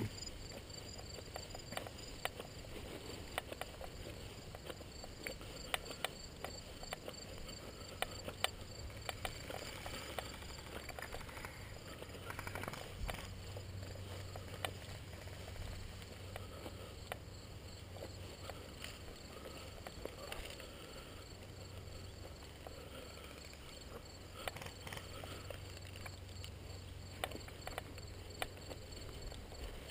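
Footsteps and rustling through tall grass, with irregular light clicks and knocks from gear. Insects chirp in rapid, even pulses in the background.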